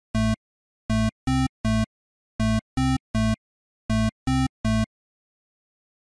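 Retro 8-bit-style synthesizer beeps: short buzzy notes in groups of three, the middle note slightly higher, a group about every second and a half, stopping about five seconds in.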